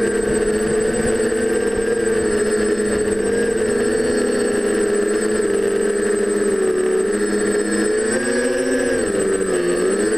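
TBS Discovery quadcopter's four DJI 920Kv brushless motors with 9x5 propellers buzzing steadily in flight. Near the end the pitch dips and comes back up as the throttle eases off and opens again.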